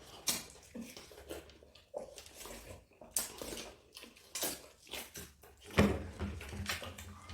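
Wet biting, chewing and slurping of juicy watermelon, in a string of short irregular bursts with a louder one about six seconds in.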